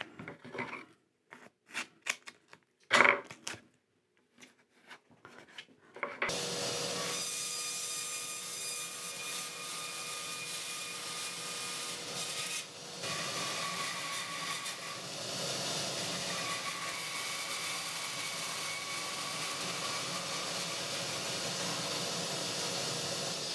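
A few short tearing and rubbing sounds of masking tape being handled on wooden boards. About six seconds in, a band saw starts cutting and runs steadily through two wooden side panels taped together, a constant hum under the cutting noise.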